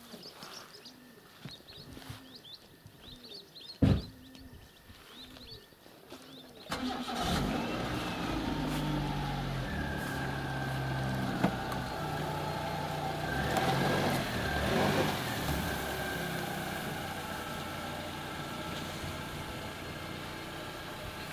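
A car door shuts with a single thump about four seconds in. A few seconds later the car's petrol engine starts and runs steadily as the car drives off slowly across grass.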